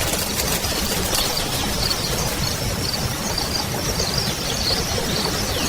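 Steady nature ambience: a constant rushing noise of flowing water with a stream of high, repeated chirps from birds or insects.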